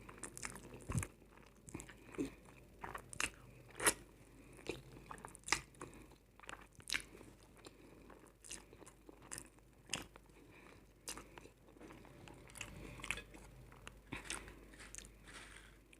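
Close-miked eating: a person biting and chewing crunchy potato chips with instant noodles, sharp crunches coming irregularly about once or twice a second.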